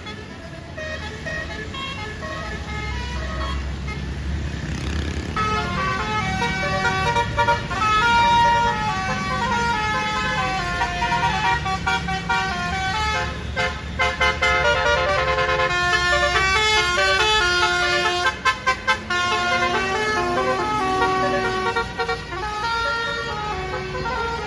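Bus's Basuri multi-trumpet "telolet" air horn playing a tune in stepped notes from about five seconds in, with a steady low rumble from the bus's engine underneath.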